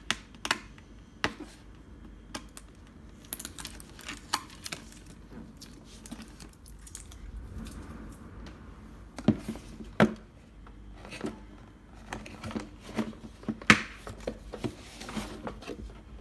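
Hard plastic Gekko toy case being handled and worked open by hand: scattered plastic clicks, taps and knocks, with a few louder knocks in the second half.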